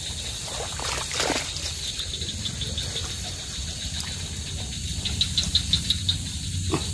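Insects chirping in quick, evenly spaced high pulses, loudest in the second half, over a steady low rumble, with a brief rustle about a second in.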